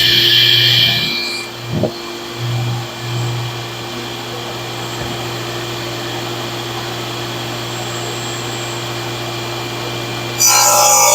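Table saw running freely with a steady hum, then, about ten seconds in, its rip blade bites into a thick black walnut slab and the sound turns suddenly much louder and rougher as the rip cut begins.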